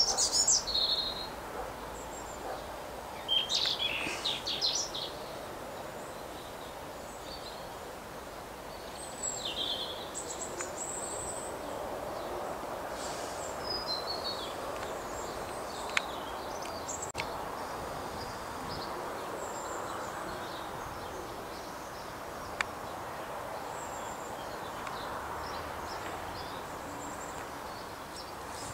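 Small birds chirping and calling in short bursts, most busily in the first few seconds and then scattered, over a steady outdoor background hiss. Two brief sharp clicks stand out in the second half.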